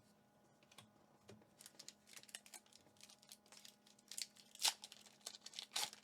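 A Pokémon booster pack's foil wrapper being torn open and crinkled: quiet at first, then a run of quick crackles from about a second and a half in, loudest in two sharp crinkles near the end.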